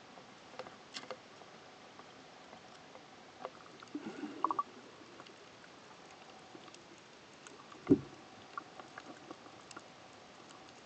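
Faint steady water hiss heard through a camera's waterproof housing, with scattered small clicks and knocks, a short cluster of them about four seconds in, and one louder thump near eight seconds.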